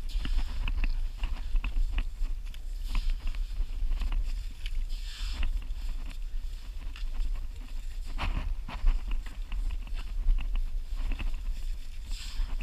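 A short shovel and gloved hand digging into wet tidal sand and mud for butter clams, with irregular scraping, gritty crunching and wet slapping strokes over a steady low rumble.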